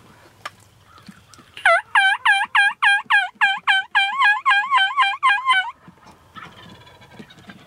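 A turkey yelping: a long, loud run of about fifteen evenly spaced yelps over some four seconds, starting about a second and a half in. A fainter, shorter call follows about a second later.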